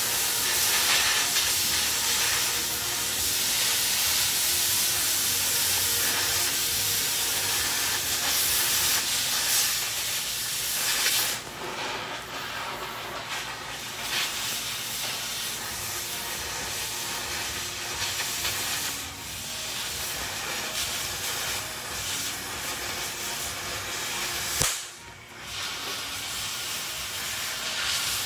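Oxy-fuel cutting torch hissing steadily as it cuts through rusted steel rocker-panel sheet metal on a race car chassis. The hiss drops away briefly about eleven seconds in and again near the end, with a sharp click just before the second drop.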